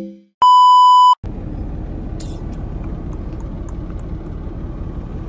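A single loud, steady, high electronic beep lasting under a second, then a steady low rumble inside a semi-truck cab.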